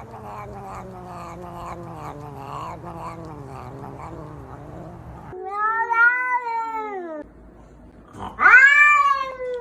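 A cat yowling: a long, wavering cry for about five seconds, then two loud, drawn-out meows that each rise and fall in pitch. The second meow starts about eight seconds in and is the loudest sound.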